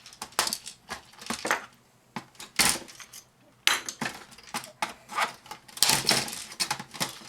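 Irregular clicks, knocks and clatter of the laminator's plastic and metal parts being handled and pried at during dismantling, with a louder knock about two and a half seconds in and a busier run of clatter in the second half.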